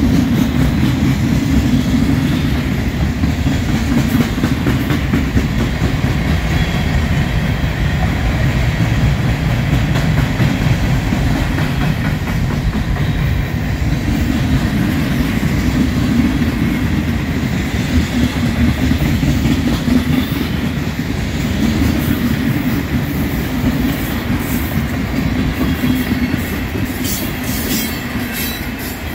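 Freight cars (loaded centerbeam lumber flatcars and covered hoppers) rolling past close by: a steady heavy rumble of steel wheels on rail with clickety-clack over the rail joints. A brief crackle near the end.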